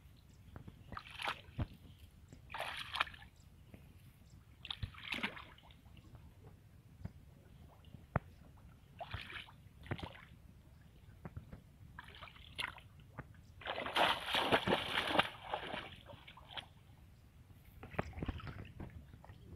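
Shallow marsh water sloshing and splashing as a person wades through it, a splash every second or two, with a longer spell of splashing about three-quarters of the way through.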